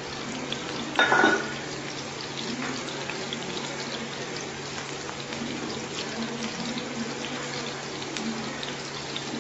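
Chopped onion, curry leaves and green chillies frying gently in a little coconut oil in a pan over a low flame: a steady soft sizzle with faint crackles. A brief louder sound stands out about a second in.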